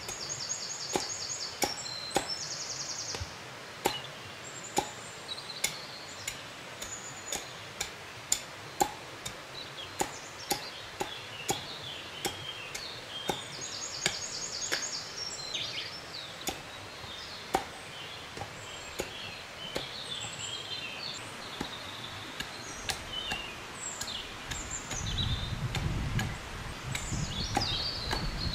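Hatchet chopping a wooden branch: a run of sharp knocks, irregular, about one to two a second. Birds sing over it.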